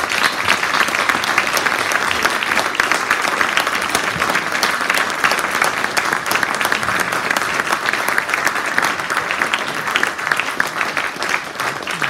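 Audience applauding, a dense steady clapping that fades near the end.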